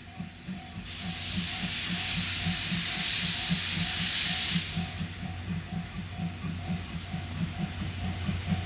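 Steam locomotive letting off a loud hiss of steam that swells from about a second in and cuts off suddenly a few seconds later. A level-crossing warning bell rings steadily underneath, about twice a second.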